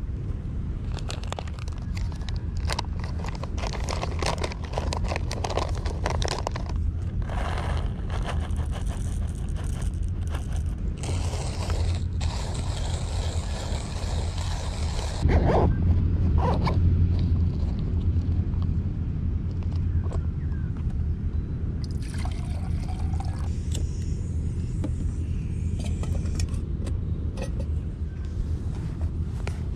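Hand coffee grinder and its pouch being handled, with clicks, scraping and rustling as the grinder is unpacked and the coffee bag is worked, over a steady low rumble.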